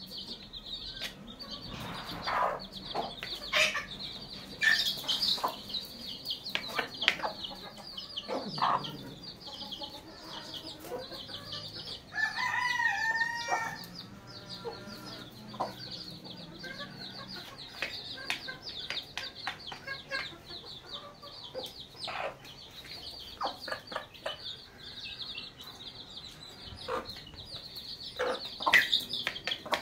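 Chicks peeping nonstop in a high, rapid chatter, with a hen clucking in short notes. About twelve seconds in, a rooster crows once, a wavering call about a second and a half long.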